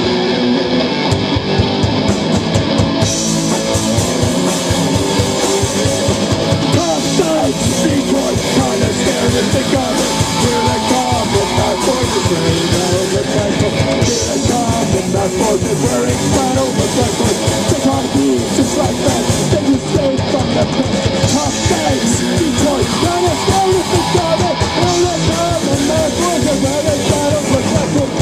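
A rock band playing live through amplifiers: electric guitar, electric bass and a drum kit keeping a fast, steady beat.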